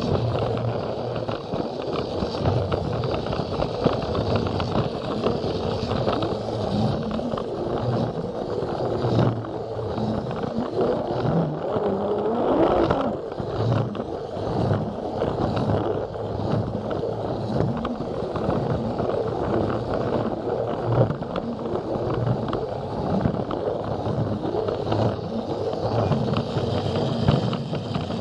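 Plarail battery-powered toy train running along plastic track, heard from a camera riding on the train: the small electric motor whirring steadily, with frequent small clicks and knocks from the wheels on the track. About halfway through there is a brief rise in pitch.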